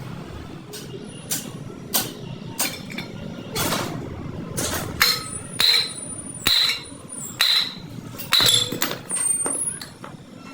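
Hammer blows on metal: about a dozen irregular strikes, several of them with a clear metallic ring.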